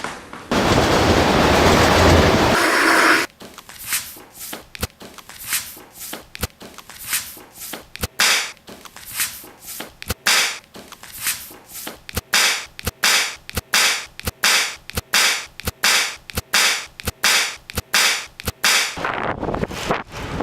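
A few seconds of loud rushing noise, then a long, uneven run of short, sharp scraping strokes, one or two a second, which stops near the end.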